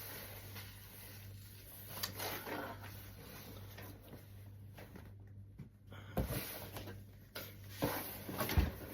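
Steady low hum and hiss, with three soft thumps in the second half.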